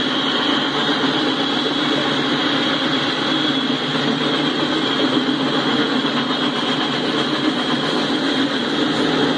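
Freight cars rolling past: a steady, even noise of steel wheels running on the rails.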